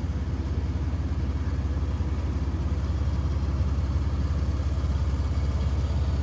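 Toyota 4Runner engine running steadily at idle speed while the truck crawls along in the lowest range of its Marlin Crawler dual transfer case.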